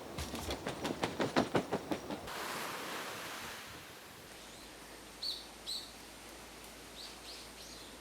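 A rapid run of about a dozen harsh, clicking notes over two seconds, then a brief rustle. After that a bird gives two short high chirps, followed near the end by a few fainter chirps.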